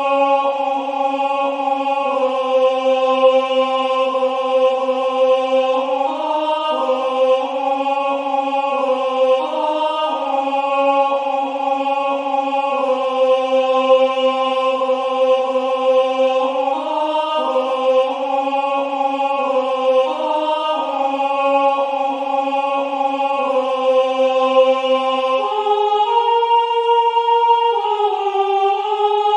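Synthesized choir voices singing the alto part of a hymn tune on a wordless vowel, in smooth sustained notes that step from pitch to pitch at a moderate tempo. The lowest line drops out for a couple of seconds near the end.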